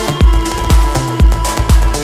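Electronic dance music with a steady kick drum, about two beats a second, under sustained synth tones.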